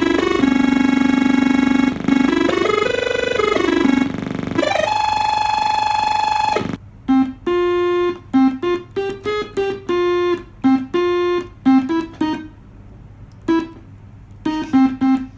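Homemade analog monophonic push-button synthesizer playing. At first it holds notes that slide up and down in pitch, then a higher held note. From about seven seconds in it plays a tune of short, separate notes with brief silences between the button presses.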